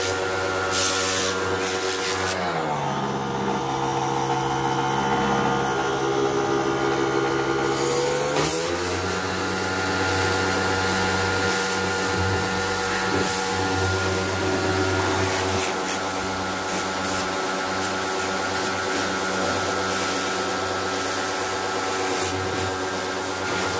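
Electric pressure washer running while its jet sprays water onto a window air conditioner's metal casing and coils, a steady motor note under a water hiss. About two seconds in the spray hiss drops away and the motor note falls lower for about six seconds, then the spray and the higher motor note come back.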